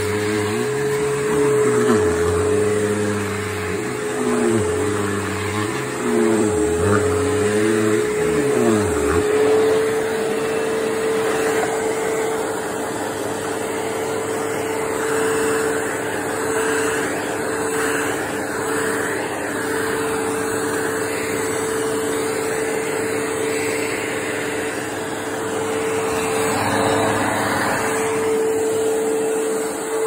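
Bissell PowerForce bagged upright vacuum cleaner (model 3522-1) running on a rug, its motor giving a steady whine. Under it a lower hum rises and falls in pitch over the first nine seconds or so.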